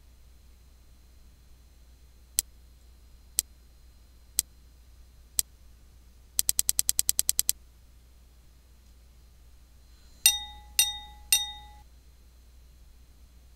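Four sharp clicks about a second apart, then a fast run of about a dozen clicks, then three quick ringing dings, each with a clear pitch that dies away.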